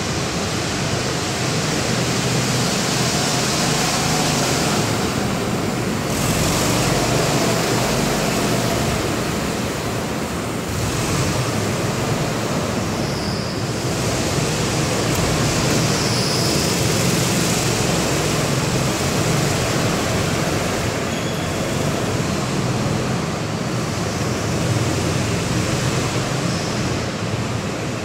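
Steady rushing noise, even and unbroken, with no distinct shot or impact standing out.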